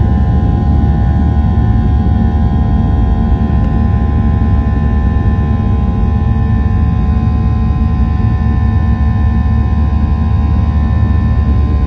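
Boeing 737-800's CFM56-7B turbofan engines at takeoff thrust, heard from inside the cabin over the wing: a loud, steady rumble with steady whining fan tones through the end of the takeoff roll, lift-off and initial climb.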